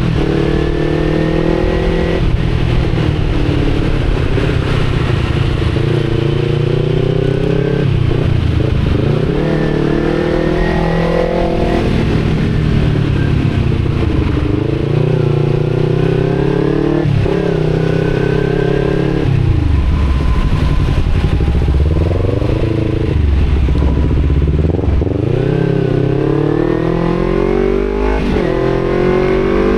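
Kawasaki Z250 parallel-twin through an Akrapovic exhaust, repeatedly accelerating and shifting gear. The engine note rises with revs and falls back at each shift or roll-off, several times over.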